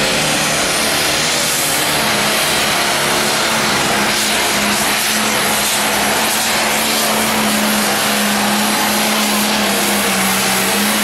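John Deere turbo-diesel pulling tractor running flat out under load as it drags a weight-transfer sled. A loud, steady engine note that holds its pitch.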